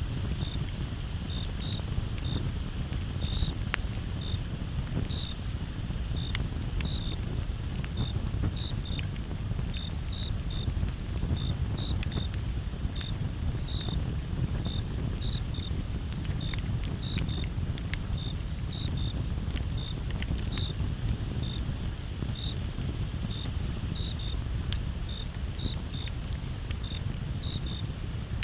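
Crickets chirping in short high chirps about twice a second over a steady insect hum, with a wood campfire crackling in scattered sharp pops and a steady low rumble underneath.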